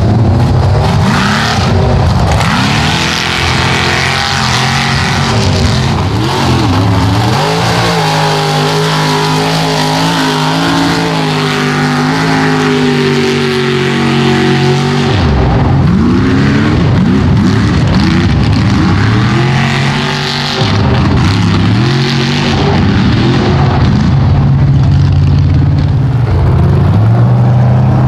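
Ford mud truck engines at full throttle, the revs rising and falling again and again as the drivers work the throttle. About eight seconds in, the engine holds a steady high pitch for several seconds, then goes back to rising and falling.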